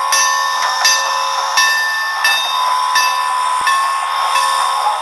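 Steam locomotive bell on Norfolk & Western 475 ringing steadily, struck about once every 0.7 seconds, over a steady hiss.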